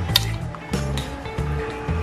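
Background music with a steady beat over a moving bass line.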